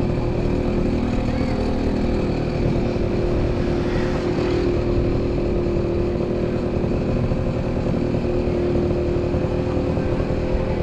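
Motorbike engine running at a steady speed during a ride: an even engine hum over a rough low rumble.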